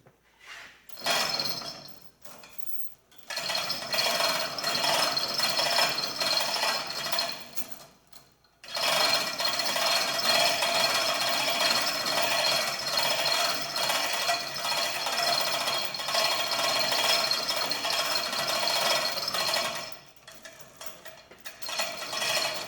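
A power tool or machine running in three long bursts with a fast, even rattle, the longest lasting about eleven seconds, then stopping near the end.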